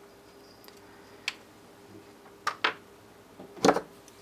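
A few small clicks and taps as a metal laser diode module and a chisel knock against a slotted laser-cut plastic mount while the laser is slid into it: a faint click about a second in, two more a little later, and the loudest cluster near the end.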